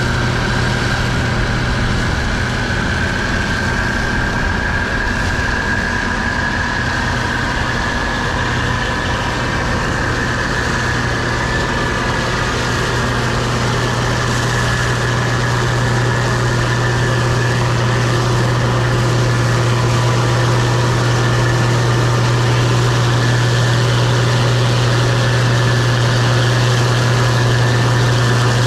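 Case IH 2388 Axial-Flow combine running while harvesting soybeans: a steady low engine drone with a high whine from the machine above it, growing slightly louder toward the end.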